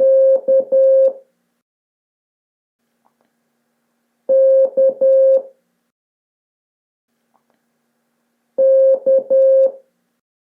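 Morse code beep tone sounding the letter K, dash dot dash, three times, with about three seconds of silence between repeats.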